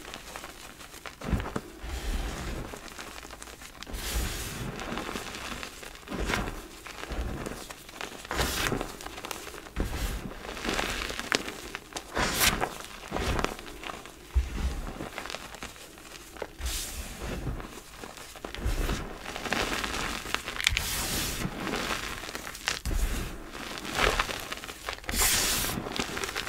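Hands squeezing and crumbling soft powdery gym chalk: a soft, crackly crunch in irregular bursts every second or two as the chalk is crushed and sifts through the fingers.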